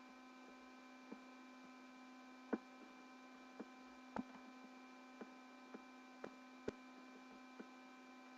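Faint steady electrical hum with several tones, broken by about ten sharp clicks at irregular intervals, the loudest about two and a half seconds in.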